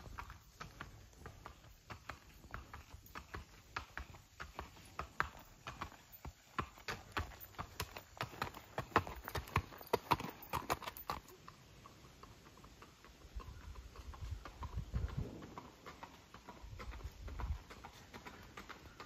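Hooves of a Missouri Fox Trotter gelding clip-clopping on a paved lane under a rider, a quick run of sharp hoof strikes. About two thirds in the strikes give way to duller, softer footfalls on a leaf-covered trail.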